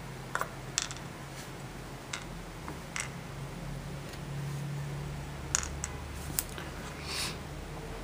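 A handful of light, scattered clicks as small lock pins are tipped out of a brass ASSA cylinder plug and handled on a wooden pin tray, over a steady low hum.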